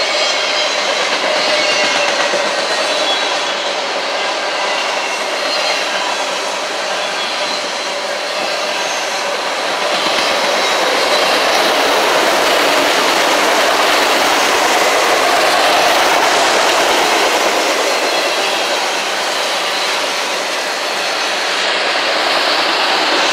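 Autorack freight cars of a CSX train rolling past: a steady noise of steel wheels on rail, growing a little louder about ten seconds in.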